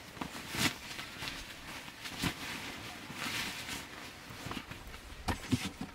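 Rustling with a few scattered light knocks as camping gear is unpacked and handled.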